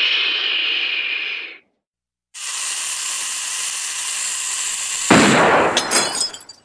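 Sound-effect gunshot: a loud bang about five seconds in, followed by brief crackling, after two stretches of hissing noise separated by a short silence.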